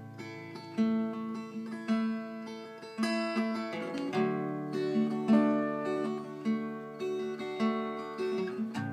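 Acoustic guitar playing an instrumental passage: chords picked and strummed about once a second, each ringing and fading, with a change of chord about four seconds in.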